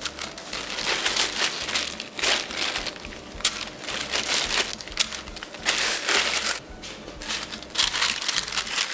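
Disposable plastic glove crinkling in irregular bursts as hands squeeze and shape cooked spaghetti into balls, with plastic wrap rustling over the sheet pan near the end.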